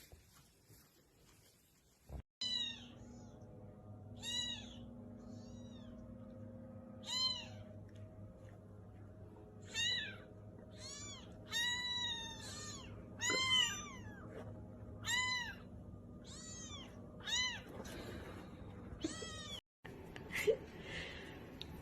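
A cat meowing over and over, about a dozen short meows, each rising and falling in pitch, with a faint steady hum underneath.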